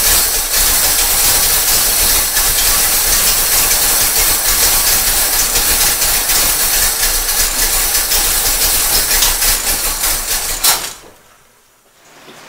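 Freshly installed Blueprint crate V8 in a Corvette running loudly and roughly with an open hiss over a low rumble, its carburetor flooding it with fuel. It stops abruptly with a sharp click about eleven seconds in.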